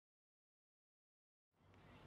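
Dead silence at a fade to black between clips, with faint trackside background noise fading back in about a second and a half in.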